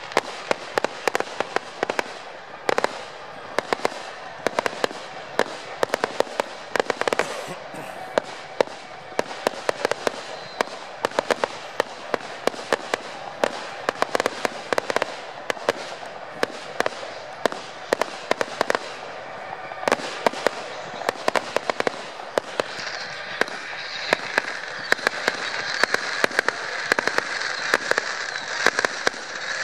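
Fireworks going off: a rapid, dense string of sharp bangs and crackles, several in quick succession. The sound grows denser and louder over the last several seconds.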